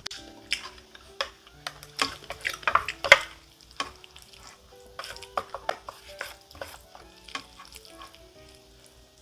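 A spoon stirring and scraping bibimbap rice and vegetables in a stainless mixing bowl, in irregular wet scrapes and clinks. It is busiest and loudest about two to three seconds in, then thins out.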